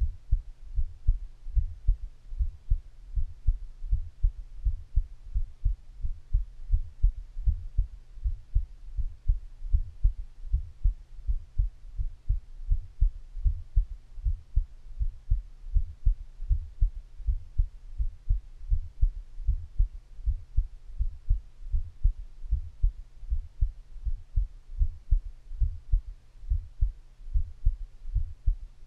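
A human heartbeat picked up through the belly, with the abdomen close against the microphone. It is a steady, even rhythm of low, dull thumps.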